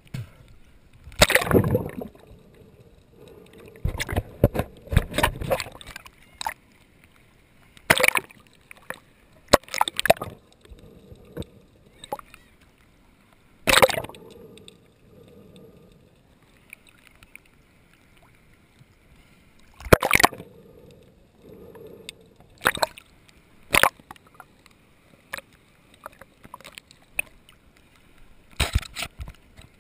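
Water splashing and sloshing against a handheld camera as a snorkeler swims with fins, the camera dipping in and out of the surface. Irregular splashes come every few seconds, with muffled gurgling between.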